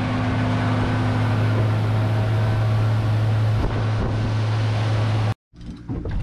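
Mercury outboard motor running at cruising speed, a steady low hum over wind on the microphone and the rush of water past the hull. It cuts off abruptly about five seconds in, leaving quieter wind and water.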